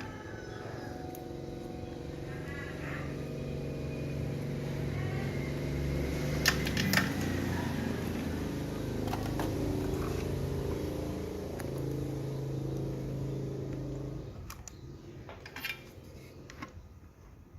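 A motor vehicle's engine that grows louder, holds, then fades away, as when passing by. Two sharp clicks come about six and a half seconds in.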